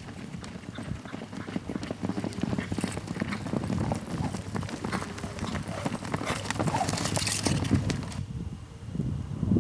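Horses galloping on loose arena dirt, a dense, uneven clatter of hoofbeats as two roping horses chase a steer, which stops abruptly about eight seconds in.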